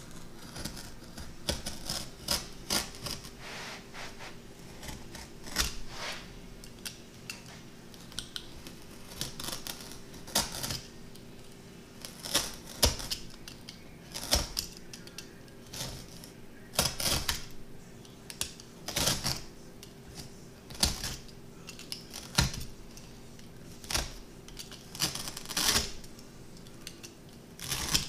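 Utility knife cutting through carpet on a plywood bench: a string of short, scratchy cutting strokes at an uneven pace, roughly one a second.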